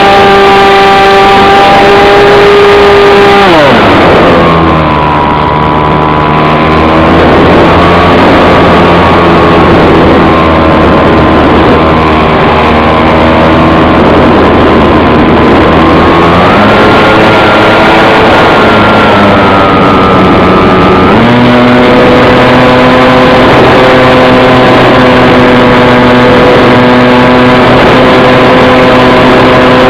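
An engine running steadily at high volume, its pitch dropping sharply about three and a half seconds in, rising again around sixteen seconds and falling back around twenty-one seconds as the throttle is changed.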